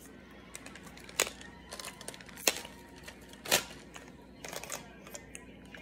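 Clear plastic tube of gumballs being handled, its plastic clicking and cracking sharply three times with smaller clicks in between.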